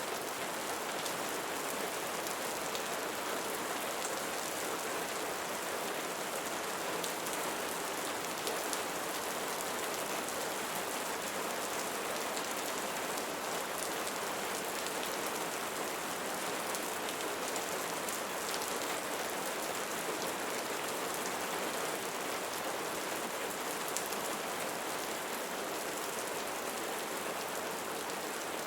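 Steady rainfall pattering on a surface, a dense even hiss of many drops with faint individual drop ticks.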